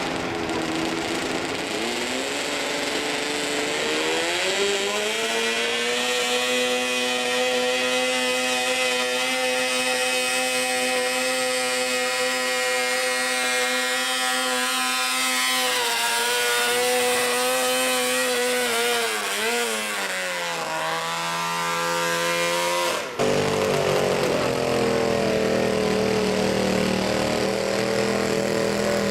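Modified riding lawn mower's small engine revving up and held at high, steady revs while pulling, then wavering and dropping in pitch near the end. A sudden break about 23 seconds in gives way to an engine running at lower revs.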